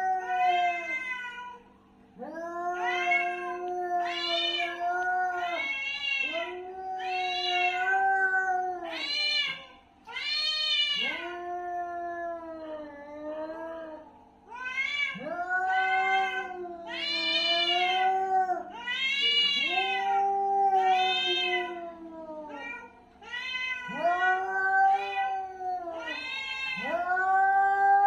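Angry cats caterwauling, the aggressive yowls of a cat fight: long, drawn-out wavering calls, one after another with brief gaps, each swelling and falling in pitch.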